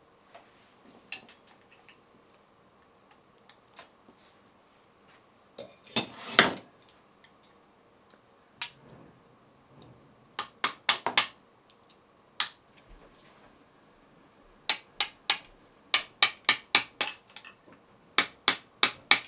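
Hammer striking a steel drift punch to drive the groove pin through the planetary and shaft of a KitchenAid stand mixer. Sharp metallic taps come in quick runs of several, with a heavier knock about six seconds in and runs of taps growing denser toward the end.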